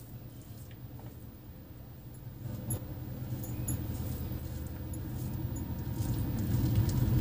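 Fingers mixing and squishing rice with fish curry on a plastic plate, with a few small clicks. A low rumble grows louder over the second half.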